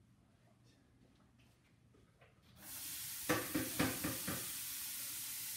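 Quiet at first. About two and a half seconds in, chopped vegetables go into hot olive oil in a large pot and a steady sizzle starts, with several sharp clacks just after as they are stirred.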